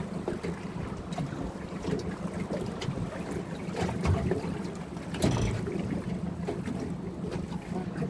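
A small fishing boat sitting on the water, with wind on the microphone over a steady low hum and scattered knocks. The loudest knock comes about five seconds in.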